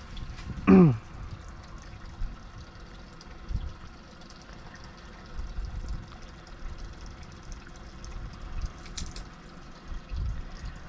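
Water lapping and trickling quietly against a small boat, with scattered low rumbles and small knocks. There is a man's short falling groan about a second in.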